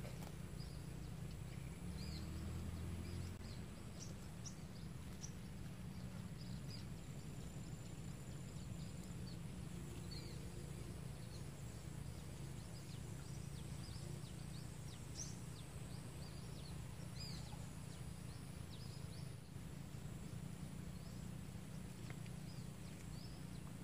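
Outdoor ambience: a steady low rumble with many short bird chirps scattered through it and a faint, steady high-pitched insect drone.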